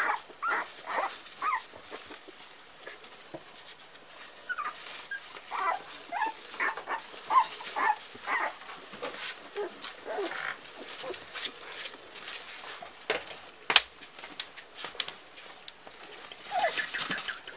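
Four-week-old Parson Russell Terrier puppies whimpering and yipping in short, high squeaks, over the crinkle of a plastic bin liner as they push into the bin. A single sharp knock about three quarters of the way through.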